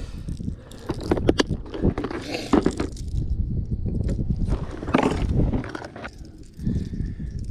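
Heavy wind buffeting the microphone in a constant low rumble, with a few scrapes and knocks about a second, two and a half seconds and five seconds in.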